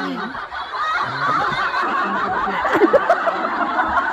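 Several people snickering and laughing at once, their laughs overlapping.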